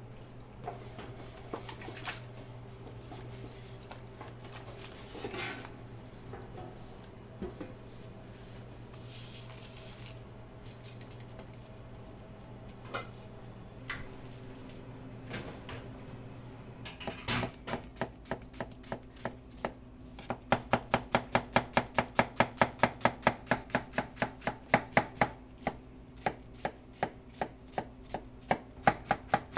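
A chef's knife rapidly chopping onion on a plastic cutting board, about four even strokes a second, starting a little past halfway. Before that, only a few scattered knocks over a steady low kitchen hum.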